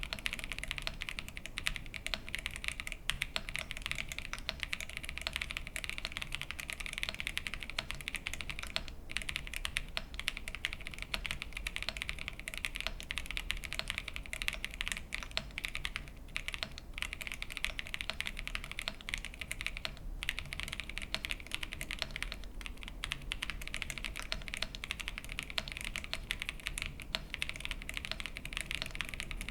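Continuous fast typing on the VARO V87 Pro, a gasket-mounted aluminium mechanical keyboard with factory-lubed Cidoo switches and PBT keycaps: a dense, even patter of key clicks.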